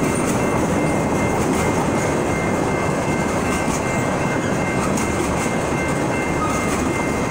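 Freight train of tank cars and covered hopper cars rolling steadily past: a continuous rumble of steel wheels on rail, with faint steady high-pitched tones above it.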